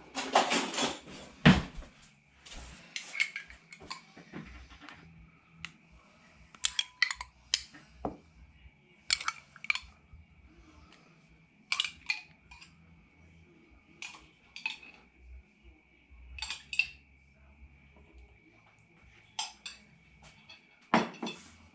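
A utensil clinking against a glass jar as apple sauce is spooned out and served, with short sharp clinks, often in pairs, every two to three seconds. The first two seconds hold busier clattering as the jar is handled.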